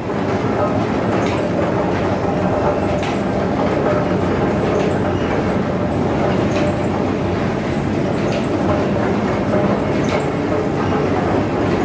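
Clay-processing machinery running, with a belt conveyor carrying lumps of clay: a steady rumble with light clicks at irregular intervals of about a second.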